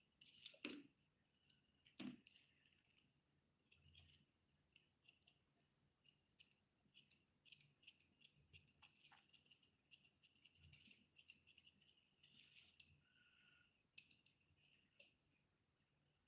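Grooming scissors snipping through a toy poodle's facial fur in quick runs of small crisp cuts, stopping and starting with short pauses.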